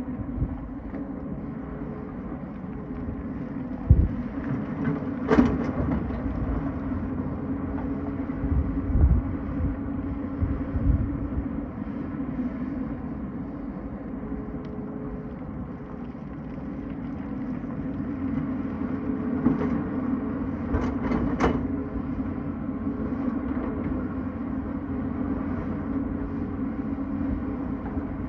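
Tata Hitachi excavator's diesel engine running steadily while digging, with a few low thumps about 4 and 9 seconds in and sharp clanks around 5 seconds in and twice near 21 seconds.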